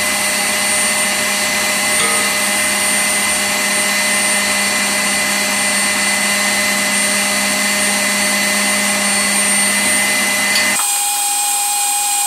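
Electric stand mixer running steadily, its wire whisk beating egg whites and sugar into stiff meringue: a constant motor hum with high, steady whining tones. Near the end, the lower hum briefly drops away.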